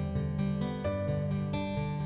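Instrumental background music of plucked strings, its notes struck in a steady run and left to ring.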